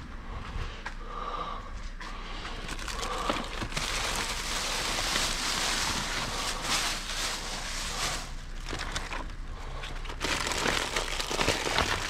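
Plastic bags and produce packaging crinkling and rustling as hands rummage through food in a dumpster, busiest from about three seconds in until near the end.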